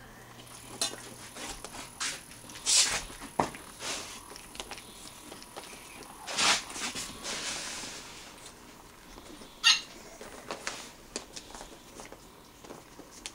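Newspaper bedding rustling and crinkling in irregular bursts under moving pets, with scattered sharp clicks and taps.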